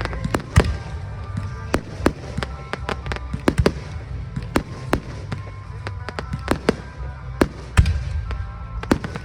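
Aerial fireworks exploring in a rapid barrage: many sharp bangs, two or three a second, over a continuous low rumble, with music playing underneath.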